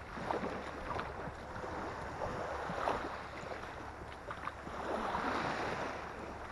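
Shallow saltwater sloshing and splashing around the legs of someone wading a flat, swelling twice, with light wind rumble on the microphone.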